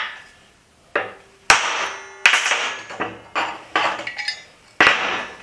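Hammer striking a transfer punch on a steel channel to mark a hole: about seven sharp metal-on-metal strikes at uneven spacing, each ringing briefly.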